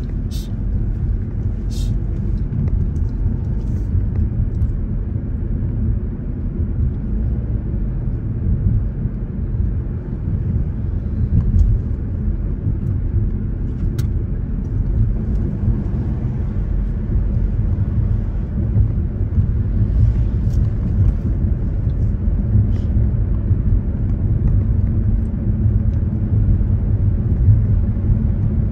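Car driving along a city road, heard from inside the car: a steady low rumble of road and engine noise, with a few faint ticks.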